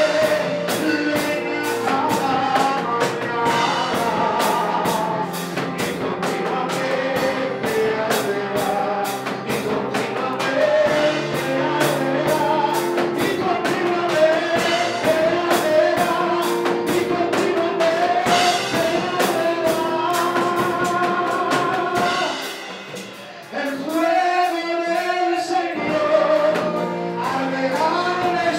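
A man singing a worship song into a handheld microphone over instrumental backing with a steady drum beat. The backing drops away for a moment about three quarters of the way through.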